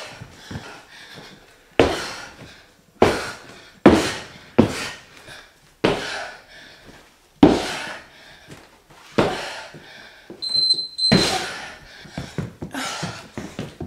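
Someone exercising hard: irregular thumps with heavy breaths, roughly one every one to two seconds. An interval timer beeps high-pitched about ten seconds in.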